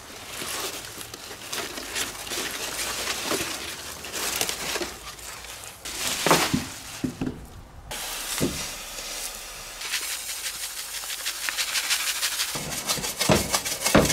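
Large zucchini leaves rustling as a hand parts them, with scattered knocks. About halfway through the sound changes to a steady hiss with rapid fine crackle, then scraping and a few knocks, as sesame seeds toast in a cast iron frying pan.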